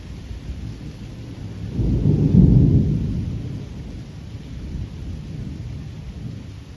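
Thunder: a low rumble swells about two seconds in, peaks, then rolls away over the next couple of seconds.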